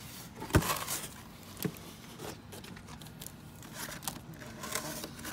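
Animatronic Halloween dog prop retracting its head behind its cloth curtain: a few sharp mechanical clicks and knocks with faint rustling.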